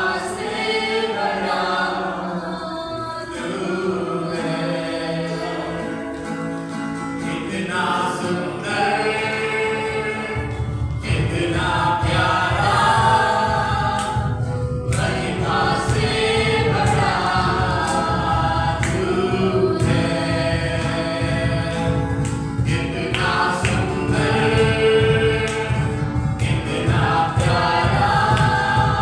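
Church worship choir singing a praise and worship song, with several voices together. A low rhythmic accompaniment joins about ten seconds in.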